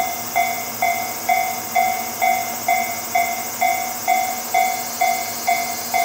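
Railroad crossing alarm bell ringing steadily at about two dings a second, with a steady high hiss underneath.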